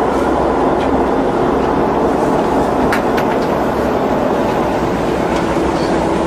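Boat under way: a steady engine drone mixed with wind and water noise, with a few faint clicks about three seconds in.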